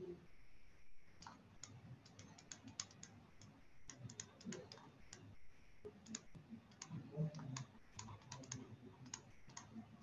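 Faint, irregular clicks and taps of a stylus on a tablet as words are handwritten.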